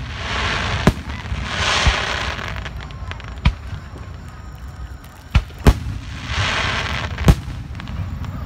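Aerial fireworks bursting: about six sharp bangs a second or two apart, two of them in quick succession, with longer stretches of crackling between the bangs.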